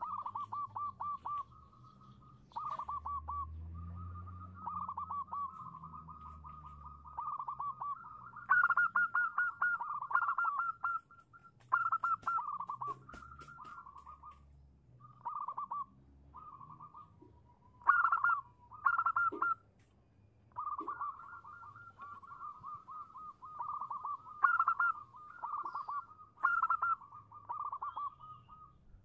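Zebra dove (perkutut) cooing: a string of short phrases, each a rapid run of staccato notes at one pitch, repeated with brief gaps. It is offered as a female's call, the kind used as a lure to draw a male into answering.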